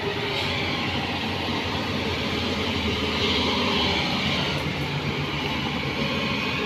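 Diesel engine of a Kobelco hydraulic excavator running steadily.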